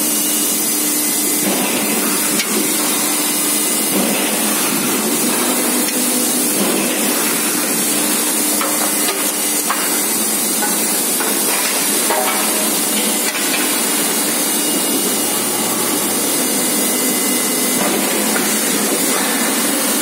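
Steady, loud din of a forging press and ring rolling machine running, with a low hum that fades about halfway and a few knocks of metal as the hot workpiece is handled.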